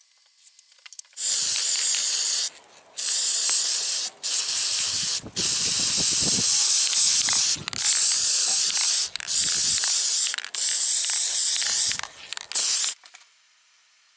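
Aerosol spray can spraying paint in about eight long hissing bursts separated by short breaks.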